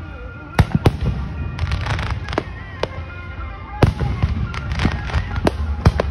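Fireworks display going off: an irregular run of sharp bangs and cracks, some in quick clusters, over a constant low rumble.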